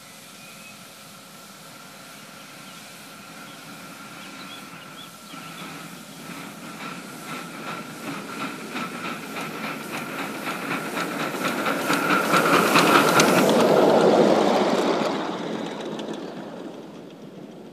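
A 5-inch gauge live steam locomotive passing: its rhythmic exhaust chuffs and wheel-on-rail clatter grow louder, are loudest about 13 seconds in, then fade away.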